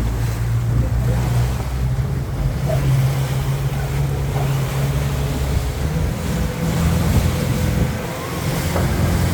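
Motorboat engine running steadily, its note rising slightly about six seconds in, over rushing water and wind on the microphone.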